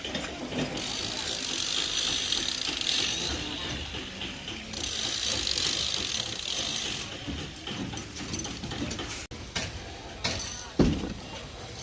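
Construction site work: steady clicking and rattling of metal and tools as rebar and formwork are handled, with a hiss in patches and one sharp knock near the end.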